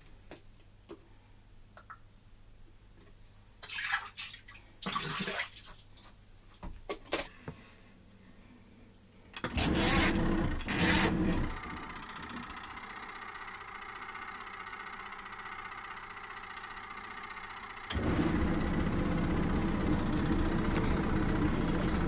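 Imperial 18 kg twin-tub washing machine being set up for a rinse: water pours into the wash tub after a few small handling knocks. About three-quarters of the way through, the wash motor switches on suddenly and runs steadily, louder than the filling.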